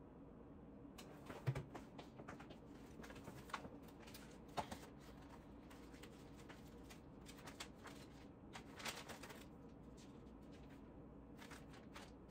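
Faint, irregular clicks and taps of typing on a laptop keyboard, starting about a second in, over a low room hum.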